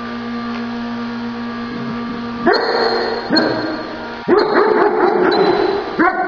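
A dog yipping and whining in a string of short pitched bursts starting about two and a half seconds in, over a steady low hum.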